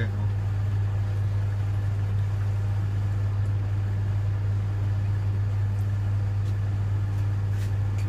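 Bendix 7147B washing machine running through its wash with a steady low hum.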